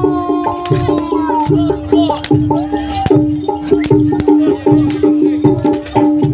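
Loud music with a steady beat: regular percussion strikes and low pulses under a held note and a melodic line.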